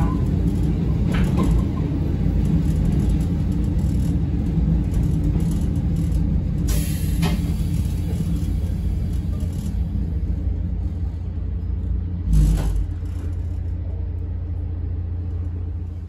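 Diesel railcar running along the line, its engine and wheels giving a steady low rumble that eases a little in the second half. There are two brief hisses, about 7 s and 12 s in; the second is louder and comes with a short thump.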